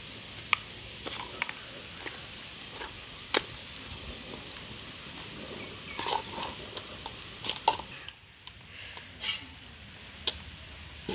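A hand squeezing and mixing wet samosa dough of flour and curd in a stainless-steel bowl: soft squelching and scraping, broken by sharp clicks every second or two as the hand and metal bangles knock the bowl.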